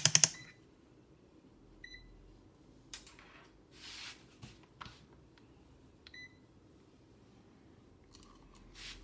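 Two short, high electronic beeps from digital multimeter button presses, about four seconds apart, with sharp clicks right at the start and scattered light clicks and knocks from handling the meters and probes.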